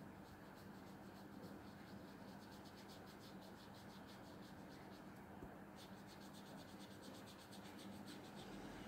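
Faint, quick rhythmic scratching of a wet paintbrush stroking over textured watercolour paper, about five strokes a second, with a short pause about five and a half seconds in.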